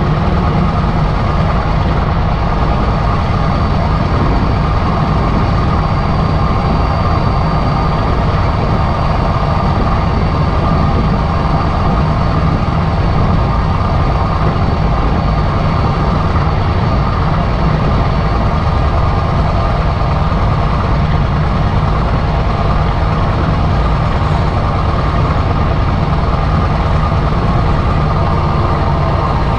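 Kirovets K-700 tractor's diesel engine running steadily under way, with a newly fitted turbocharger. A thin high whistle sits over the deep engine sound and eases slightly lower near the end.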